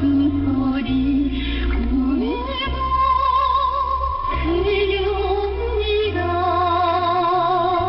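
Two women singing a song together with strong vibrato over instrumental accompaniment. It comes through a shortwave radio receiver, so the sound is thin and cut off above about 4 kHz.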